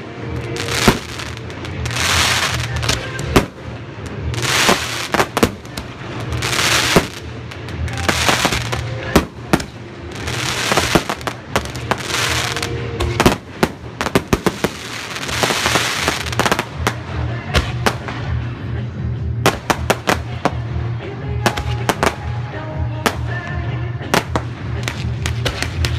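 Aerial fireworks going off: repeated sharp bangs of shells bursting, with swelling hisses between them, the bangs coming thick and fast in the last several seconds. Music plays steadily underneath.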